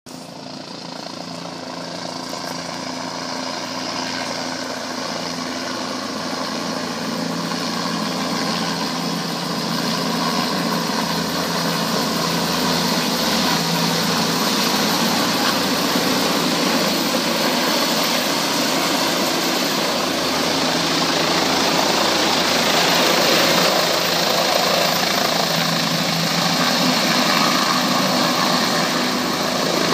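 Air ambulance helicopter's rotor and turbine engine, growing steadily louder through the first half as it flies in and passes overhead, then staying loud as it sets down. A steady hum runs underneath.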